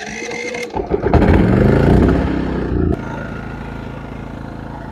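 MAXPEEDINGRODS MXR6250iE inverter generator's engine starting on full choke, catching and running up with a wavering pitch for about two seconds. About three seconds in it changes suddenly to a steady, quieter run.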